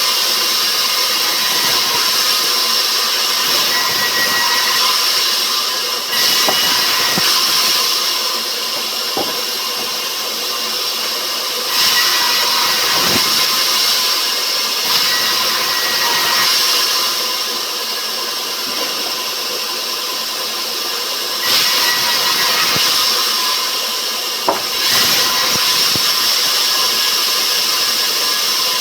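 Sawmill saw cutting rubber wood: a loud, steady machine noise that steps up and down every several seconds as cuts start and ease off, with a few short knocks.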